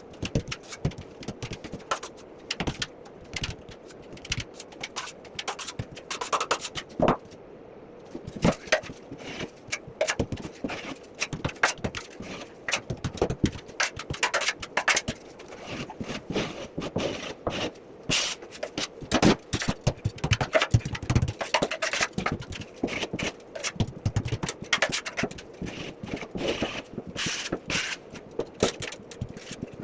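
Drywall knife scraping over a plasterboard seam as joint compound is filled in: many short, irregular scrapes and taps.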